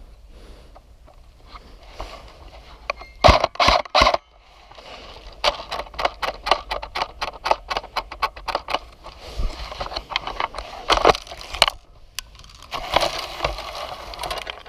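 Crackling and crunching of a player moving through dry brush and undergrowth. There are a few loud knocks about three seconds in, then a quick run of sharp snaps, then rustling.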